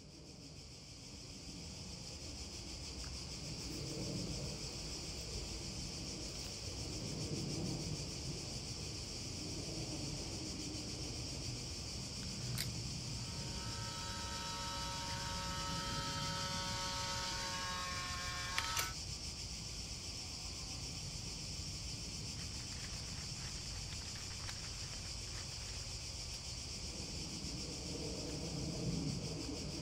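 Steady, high-pitched chorus of insects. About twelve seconds in, a pink instant camera gives a click, then a whir of several seconds, ending in another sharp click.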